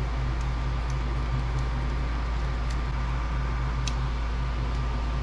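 Steady whir of the Creality Ender 3 Max's cooling fans running with the hot end heated, with a low hum beneath and a few faint light clicks.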